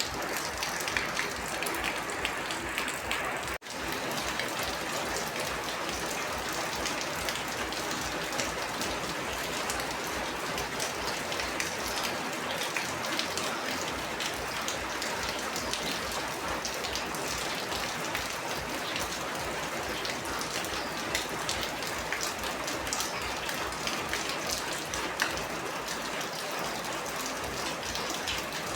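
Rain falling steadily, a dense patter of drops. The sound cuts out for an instant about three and a half seconds in.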